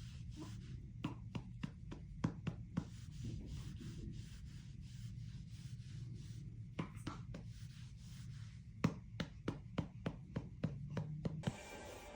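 A hand patting and rubbing a baby's back to bring up a burp: runs of soft pats, about three a second, that stop and start again.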